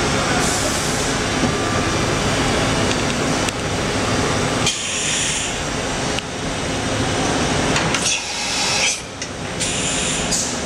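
Matsuura RA-IIF CNC vertical machining center running under power: a steady, dense mechanical noise that changes abruptly several times.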